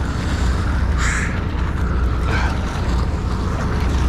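Steady low rumble of a sportfishing boat under way, with wind buffeting the microphone. A short, sharp, harsh sound about a second in.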